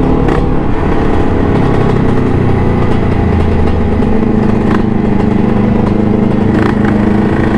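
Kawasaki Ninja motorcycle engine running while the bike is ridden along, heard from the rider's seat; the revs rise a little a couple of seconds in, then hold steady.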